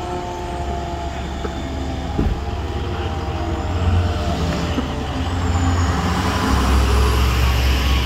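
Fire rescue truck and a pickup truck driving slowly past close by, a deep engine rumble that swells about four seconds in and again near the end.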